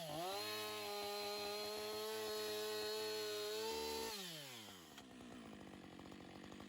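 Chainsaw running at high revs with a steady pitch, then the throttle is let off about four seconds in and the pitch falls as it slows to a quieter, lower running.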